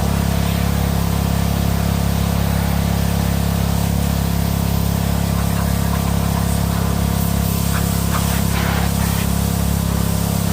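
Craftsman gas pressure washer running steadily under load: a constant small-engine drone with the loud hiss of the high-pressure water spray over it.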